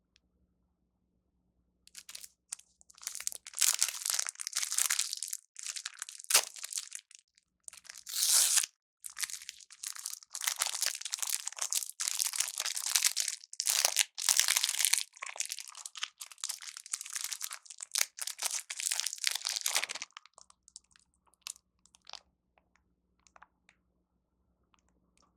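Plastic food wrapper being crinkled and torn open, with a dense crackling that starts about two seconds in and stops near the end.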